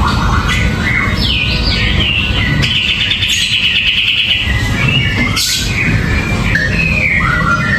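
Caged kapas tembak bulbul in full song: a run of quick chirpy warbled phrases, with a fast rattling trill about three seconds in and a sharp high note a little after.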